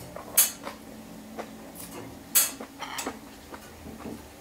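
A person slurping rice vermicelli noodles from a fork, twice in short hissing draws about two seconds apart, with a metal fork and spoon clinking lightly against a glass bowl.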